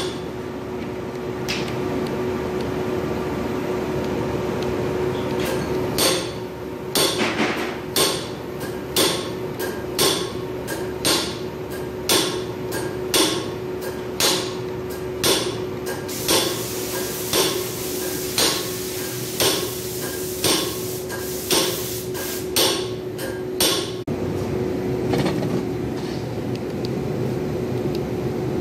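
Zanasi industrial printhead clicking sharply about once a second over a steady hum, the clicks starting several seconds in and stopping a few seconds before the end. A hiss joins the clicking for several seconds in the middle.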